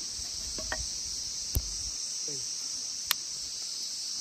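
Steady high-pitched chirring of insects in the grass, with two sharp clicks of dry sticks knocking together as firewood is laid, about a second and a half apart.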